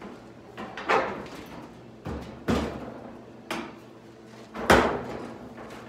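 A new sheet-steel quarter panel for a 1971 Plymouth Cuda being smacked and pushed into position on the body during a test fit. About five sheet-metal thumps with a brief ring, the loudest near the end.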